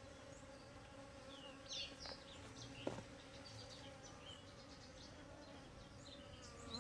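Faint, steady humming of many honeybees busy around a hive, a continuous drone with a faint pitch. Short high chirps come and go over it.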